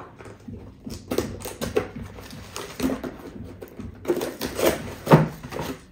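Cardboard box and packing material rustling, crinkling and scraping as a parcel is unpacked by hand, with irregular taps and crackles.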